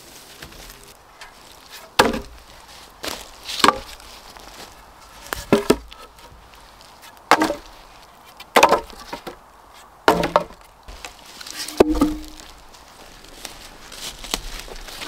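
Wooden poles knocking against one another as they are dropped and stacked: about seven sharp wooden knocks, a second or two apart.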